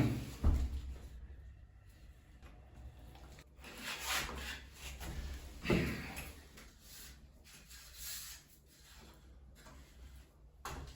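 Scattered rubbing and scraping handling noises, with a sharp knock right at the start and short bursts of scraping around four, six and eight seconds in.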